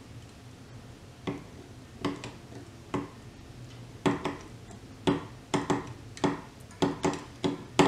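A series of short clicks and creaks as a clamp is tightened down on a pocket-hole-screwed pine corner joint. They are spaced out at first and come several a second near the end. The joint is under load of about 100 pounds and the wood is flexing.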